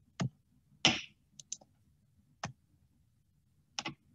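Computer mouse clicking: five or six short, sharp clicks spaced irregularly over a few seconds, the one about a second in the loudest.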